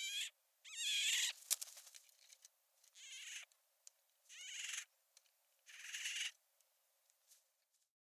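A grizzly bear cub calling: five short, high calls about a second and a half apart, with a sharp click between the first two.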